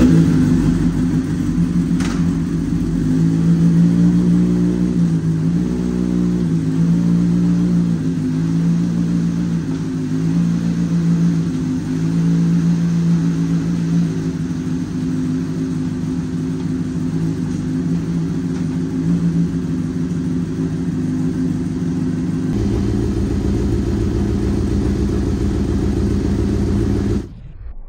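Honda CBR600RR inline-four engine running steadily in third gear. About 22 seconds in it changes to a heavier, lower note, and near the end it stops abruptly.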